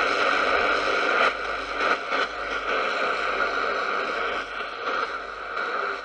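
Radio static: a steady hiss with a few faint crackles, no station voice coming through.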